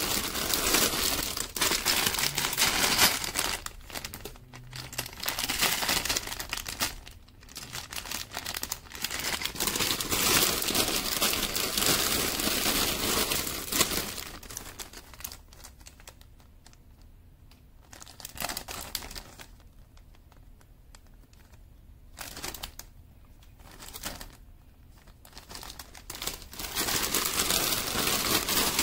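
Clear plastic bags of building-brick parts crinkling and rustling as they are handled, in bursts. It is loud and dense for about the first half, then mostly quieter with short rustles, and loud again near the end.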